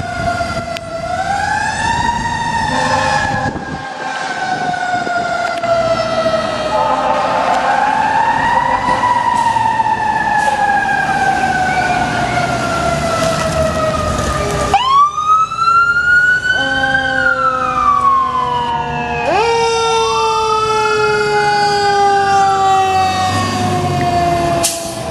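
Sirens of responding fire apparatus (a ladder truck, a battalion chief's SUV and a fire engine) wailing in slow sweeps that rise and then fall for several seconds, often two siren tones sounding at once. A new, sharply rising siren cuts in about fifteen seconds in and another about twenty seconds in, over a truck engine's rumble.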